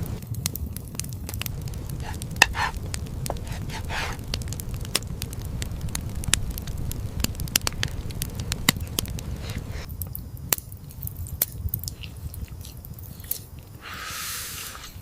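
Wood fire crackling: irregular sharp pops and snaps over a low steady rumble, with a brief hiss about a second before the end.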